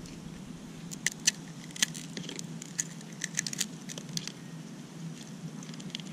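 Irregular small plastic clicks and rattles from a Makita cordless string trimmer's bump-feed head being taken apart by hand, the spool lifted out and its knotted line worked loose.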